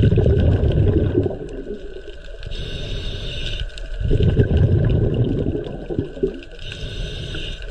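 Low, rumbling water noise of an underwater recording, swelling and fading in surges.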